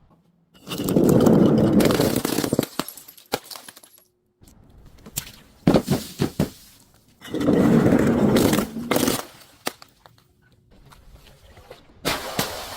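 Crunchy objects being crushed: two long spells of dense crackling and crunching, with a few sharp cracks between them and another crunch starting near the end.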